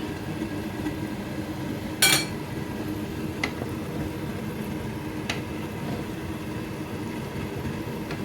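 A metal utensil clinking against a cooking pot: one sharp ringing clink about two seconds in, then two lighter taps, over a steady background hum.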